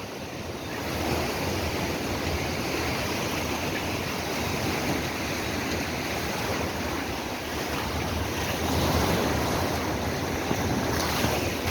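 Ocean surf breaking on a beach, a steady rush of waves that swells a little about nine seconds in, with wind buffeting the microphone.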